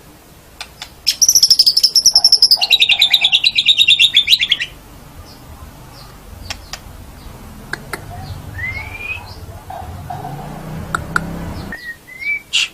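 White-rumped shama (murai batu) singing: a loud, fast trill about a second in, lasting some three and a half seconds and stepping down in pitch, followed by quieter clicks, short notes and a brief rising whistle.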